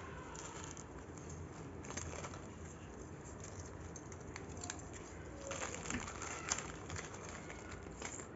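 Foil and plastic jewellery pouches rustling and crinkling as they are picked through by hand, in short bouts a couple of seconds apart and a longer bout in the second half.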